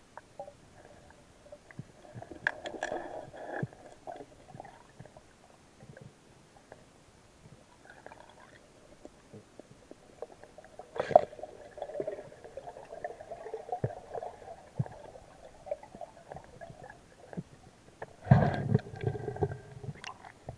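Muffled underwater gurgling and rumbling with scattered knocks, as heard by a camera in a waterproof housing moving through river water. The sound comes in irregular bursts, the loudest a low rumbling one near the end.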